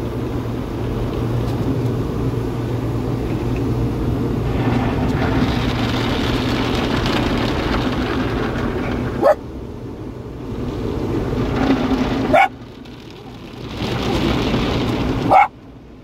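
Small dog barking three times, about three seconds apart, over the steady rush of an automated car wash's water spray and brushes on the vehicle, heard from inside the cab.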